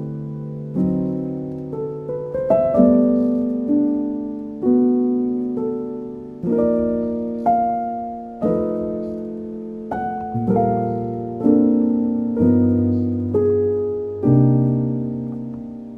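Calm, slow solo piano music: chords and single notes struck about once a second, each left to ring and fade, with deeper bass notes joining in the second half.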